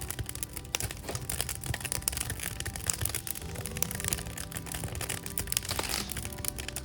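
Wood fire crackling, with a dense run of sharp pops and snaps throughout, over soft background music.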